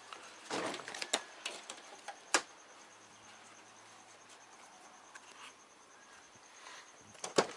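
Wiring and plastic parts handled by hand in an engine bay: a rustle about half a second in, several sharp clicks over the next two seconds, then quiet until a couple of loud clicks near the end.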